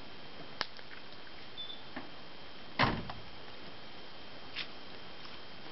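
A few short sharp clicks and one louder knock with a brief ring-out about three seconds in, over a steady hiss with a thin high tone.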